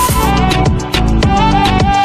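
Background music with a steady beat and a melody line.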